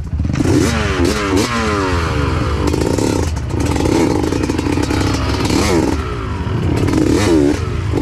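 Dirt-bike engine revved hard and repeatedly, its pitch rising and falling in quick sweeps, with high revs held for a couple of seconds in the middle.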